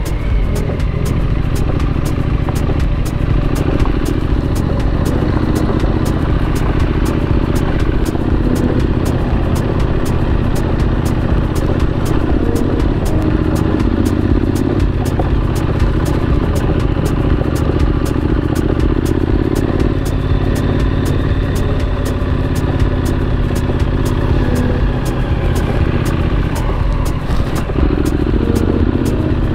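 Triumph Street Scrambler's 900 cc parallel-twin engine running as the motorcycle is ridden along a dirt path, a steady engine beat whose pitch shifts a few times as the throttle opens and eases.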